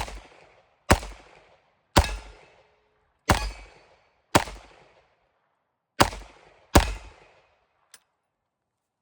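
A self-loading gun fired seven times at an irregular pace of about one shot a second, each shot followed by a short fading echo, then a faint click. The gun cycles through the string without jamming.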